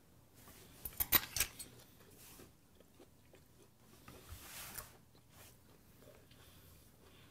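Close-miked mouth sounds of a man eating a bite of beef: a quick run of sharp smacking clicks about a second in as he bites, then faint chewing, with a breathy sound a little past halfway.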